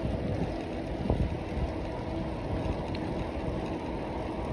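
Wind buffeting the microphone of a moving bicycle, with steady road rumble and a single knock about a second in.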